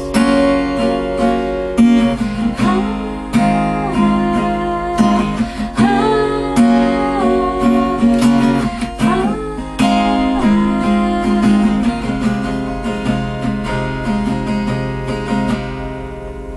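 Acoustic guitar strummed in the song's closing instrumental, with a melody line above the chords, dying away near the end.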